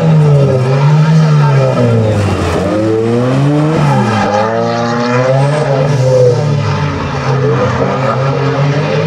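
Ford Sierra rally car's engine revving hard as it drives a bend at speed, its note climbing and dropping several times as the driver works the throttle.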